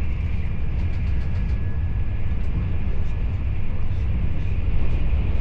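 Steady low rumble of a moving vehicle, with a faint high whine over it.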